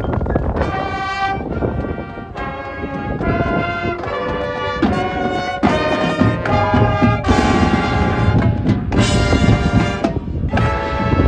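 High school marching band's brass section playing a run of held chords, the harmony changing about every second.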